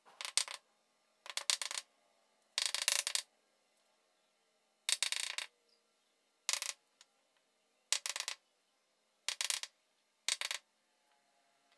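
Wooden mallet tapping end-grain wood blocks tight into a tabletop layout, in eight short flurries of quick knocks.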